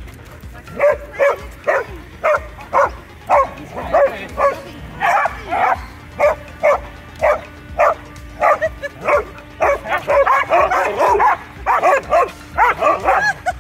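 Several dogs barking in short, sharp barks, over and over, with the barks coming faster and overlapping near the end. A Groenendael Belgian Shepherd is barking at a group of doodles.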